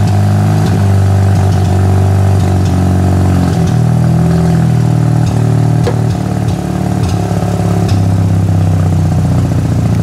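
Mazda RX-8's rotary engine idling rough with a misfire, running smoothly at moments and then stumbling and sputtering unevenly. The owner traces the misfire to an ignition coil that isn't firing.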